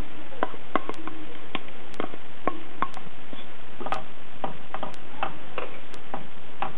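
Wooden spoon stirring thick corn soup in a stainless steel pot, knocking against the pot's side in irregular clicks, about two or three a second. A faint, even tick comes once a second underneath.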